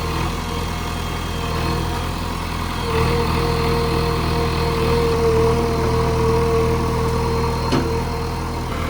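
JCB backhoe loader's diesel engine running steadily, with a steady whine that grows stronger about three seconds in and one short knock near the end.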